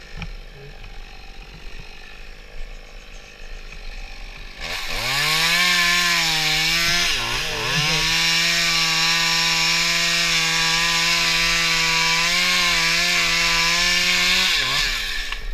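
Stihl MS192T top-handle two-stroke chainsaw revving up about five seconds in and cutting through a tree limb at full throttle. The engine note sags briefly as the chain bites, about seven seconds in, then recovers and holds steady until the throttle is released near the end.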